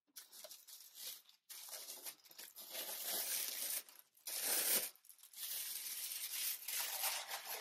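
Wrapping paper in a gift box rustling and crinkling in several spells as it is lifted and folded back by hand.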